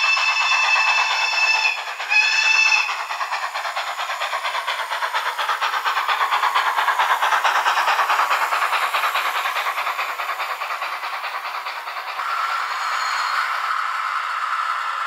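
Model ÖBB class 52 steam locomotive's sound system: a long steam-whistle blast, then a short second blast, followed by rapid steady exhaust chuffing that grows louder as the locomotive passes and then fades. Near the end the sound changes to a steady hum.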